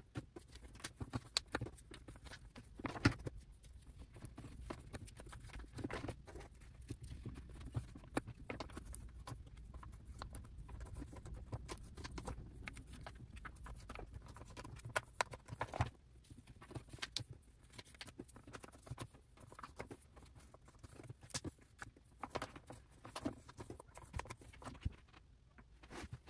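Photocards and clear plastic sleeves being handled and slid into a binder's plastic pocket pages: irregular light taps, clicks and crinkles of plastic.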